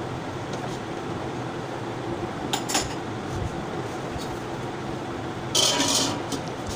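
A steel lid is set down on an aluminium cooking pot with a metallic clatter and brief ringing about five and a half seconds in. A lighter clink comes near the middle as the steel ladle is lifted out, over a steady hiss of background noise.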